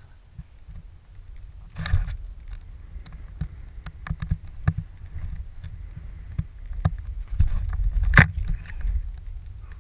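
Skis running through deep powder snow, heard through a pole-mounted action camera: a steady low rushing noise with scattered clicks and knocks from the camera pole, the sharpest knock about eight seconds in.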